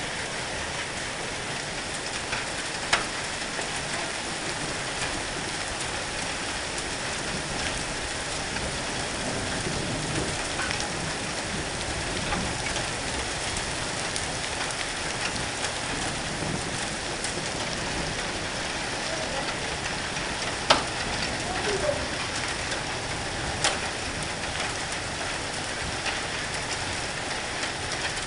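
Hailstorm downpour: a steady, dense hiss of hail and rain falling, with a few sharp louder clicks, the loudest about twenty seconds in.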